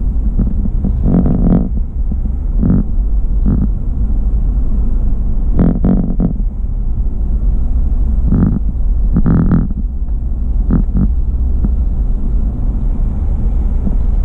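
A car driving slowly, heard as a steady low rumble with several brief, louder bursts scattered through it.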